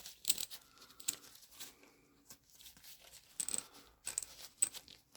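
Small metal hand tools clinking and tapping as they are handled and sorted, a scatter of short irregular clicks with a couple of bright metallic pings.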